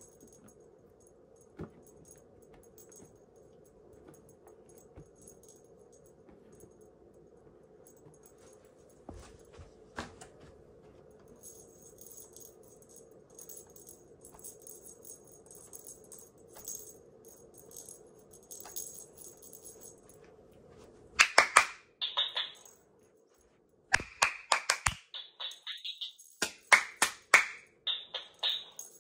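HoliBopper dancing Christmas tree toy playing a tinny pre-recorded song through its small speaker, starting about two thirds of the way in, loud and choppy with a brief pause. Before that there are only a faint hum and a few handling clicks.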